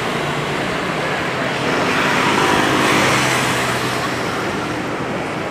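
Yamaha F1ZR's two-stroke engine running under way, mixed with road and wind noise; the sound swells briefly about two to three seconds in.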